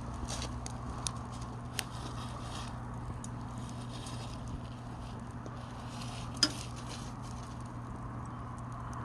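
Pine firewood burning: scattered crackles and small pops over soft, intermittent hissing, with one sharper pop about six and a half seconds in. A faint steady low hum runs underneath.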